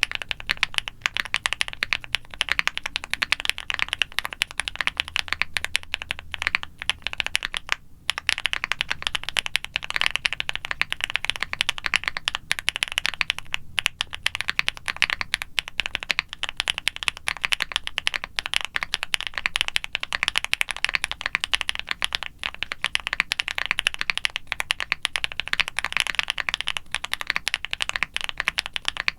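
Continuous fast typing on a QwertyKeys QK65 mechanical keyboard with factory-lubed Gateron Smoothie linear switches, a polycarbonate plate, full foam and silicone dampening, and GMK ABS keycaps. It makes a dense, even stream of key clacks with two very short breaks.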